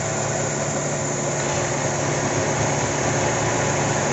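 Mitsubishi 4G63 inline-four engine idling with the air conditioning switched on. It is the rough idle being diagnosed, with an engine speed that rises and falls.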